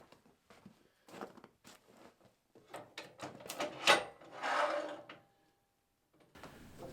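Wood knocking and scraping in an irregular run of knocks and rubs, as freshly sawn red pine timber and slabs are handled. The knocks are busiest in the middle and stop near the end.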